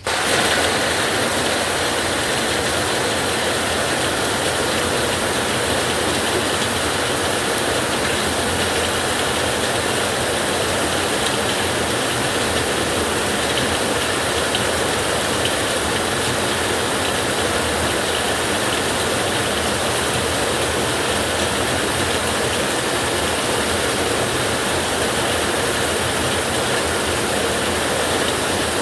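Heavy rain falling steadily on a tin roof, a dense even patter of drops on metal that cuts in suddenly at the start.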